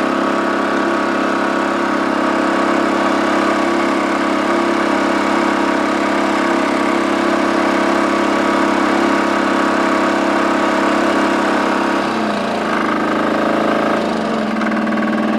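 Single-cylinder, air-cooled two-stroke Sachs 600 diesel of a Holder Cultitrac A12 running steadily under ploughing load. Its note dips about twelve seconds in and picks up again near the end.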